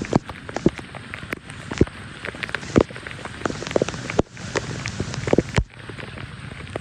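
Rain and water splashing and pattering, with scattered knocks and sloshes, at a steady level apart from two brief drops.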